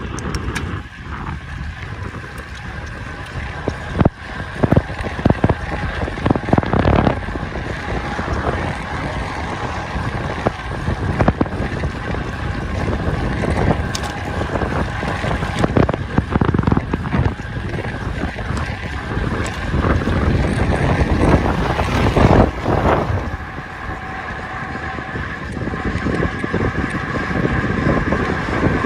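Wind buffeting the microphone of a camera carried on a moving bicycle, a steady rush that gusts louder several times.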